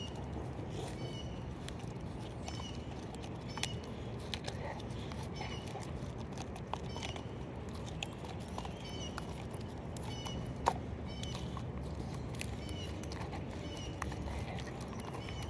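A Staffordshire bull terrier gnawing a chunk of wood, with irregular sharp cracks and crunches as its teeth bite in. The loudest crack comes about ten and a half seconds in.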